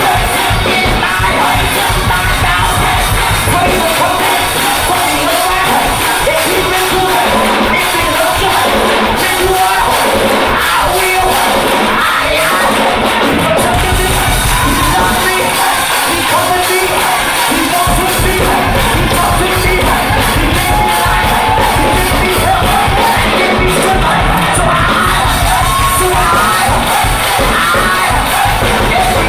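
Gospel choir singing with a band, with shouts and yells from the crowd; the bass drops out for long stretches and comes back.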